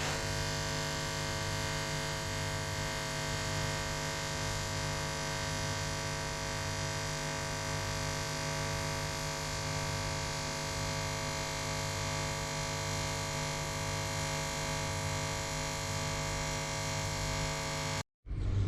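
Steady electrical hum made of many fixed tones, with a faint regular pulsing low down, cutting off suddenly near the end.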